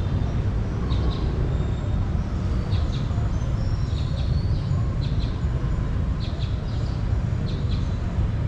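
Birds chirping in short high calls every second or so over a steady low rumble.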